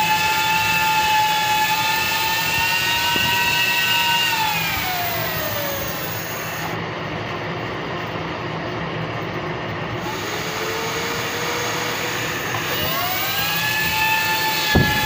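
A high-speed 12-volt DC cooling fan running with a steady high whine. About four seconds in the whine falls away as the fan spins down, and from about eight seconds it rises again as the fan spins back up to full speed. There is a sharp knock near the end.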